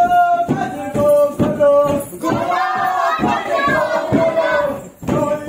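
A group of voices chanting together in unison, with short held notes and then one longer sustained note in the middle, breaking off briefly near the end.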